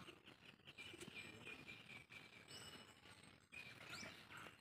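Faint outdoor ambience, close to silence: a few short bird chirps over a thin, high, steady insect buzz.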